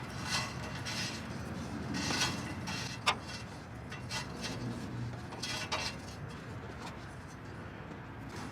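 Scattered metallic clinks and scrapes of an adjustable wrench working on the Prius's downstream oxygen sensor in the exhaust pipe, with one sharp click about three seconds in.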